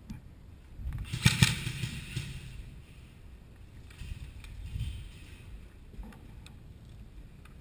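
Rustling and handling noise, with a loud burst of brushing about a second in and a few faint clicks later.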